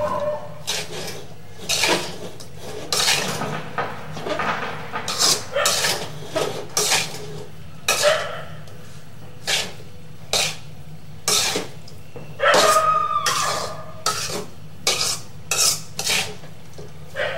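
Metal spoon scraping and knocking against a steel pan as instant noodles and vegetables are tossed and mixed, in irregular strokes about once a second, a few with a brief metallic ring.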